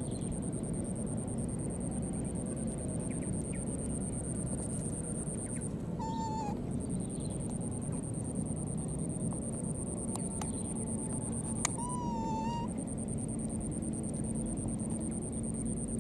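Baby macaque calling twice, about six seconds apart, each a short, high, slightly falling coo. Under it is steady outdoor background noise and a constant thin high-pitched hiss.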